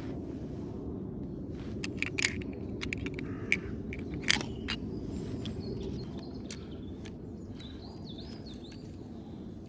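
A few sharp metallic clicks and clinks from handling the CO2 BB revolver and its shells, the loudest about two and four seconds in, over steady outdoor background noise. A bird chirps a couple of times in the second half.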